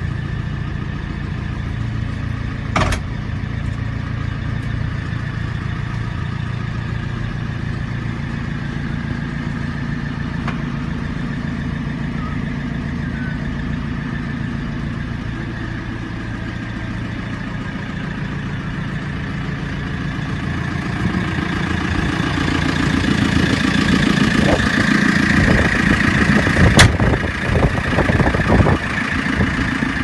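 A 2015 JCB 3CX backhoe loader's four-cylinder diesel engine idling steadily. About two-thirds of the way through it grows louder and rougher. There are two sharp clicks, one near the start and one near the end.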